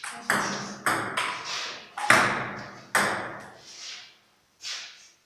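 Table tennis rally: the ball clicking in turn off the paddles and the table, a hit or bounce every half second to a second, each click ringing on in the bare room. The last click comes shortly before the end.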